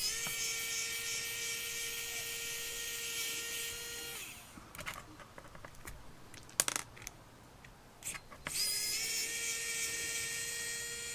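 Xiaomi WowStick 1F+ electric precision screwdriver whirring steadily as it backs out a drone motor's mounting screws. It runs in two spells, about four seconds and then about three, with a few light clicks of handling between.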